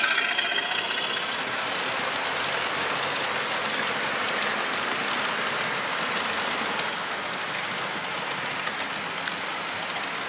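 OO gauge model train running along the track: a steady rolling hiss of metal wheels on the rails, with light clicks in the second half. A diesel locomotive's engine hum fades out in the first second or so.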